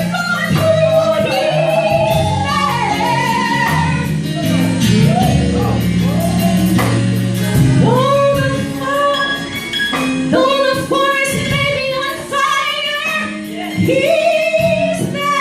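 Live gospel singing: a female voice sliding and holding notes over instrumental accompaniment with held chords.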